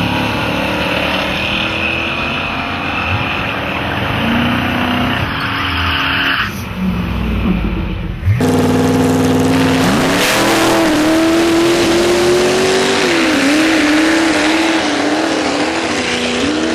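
Drag-racing cars running hard down the strip at full throttle. About eight seconds in the sound cuts to another run: an engine revving up sharply, then holding a steady, wavering note.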